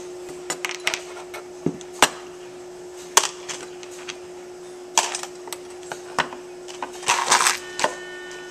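Hands handling a brass carriage clock movement and small tools on a workbench: scattered sharp metallic clicks, taps and knocks, with a quick cluster of rattling clicks about seven seconds in. A steady low hum runs underneath.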